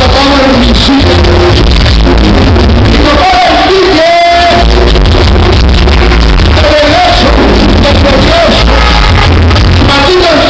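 Loud dance music played over a sonidero sound system, heavily distorted from a saturated recording, with a strong bass beat. About four seconds in, the bass drops out briefly under one held note before the beat returns.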